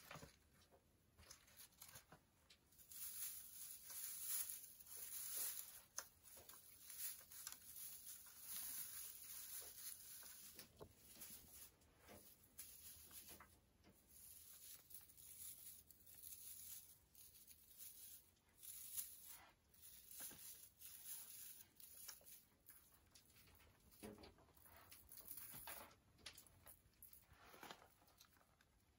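Faint rustling and crinkling from handling an artificial Christmas tree: a fabric tree skirt being tucked around its base and its plastic branches being shifted, with small irregular clicks and scrapes.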